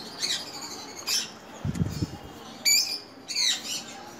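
Lovebirds giving short, harsh, high-pitched squawks, four or so separate bursts, with a brief low rumble near the middle.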